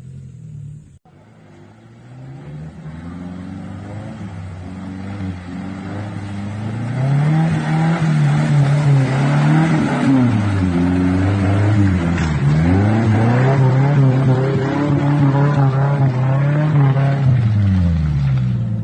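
A vehicle engine revving up and down over and over under heavy load, getting louder after about seven seconds.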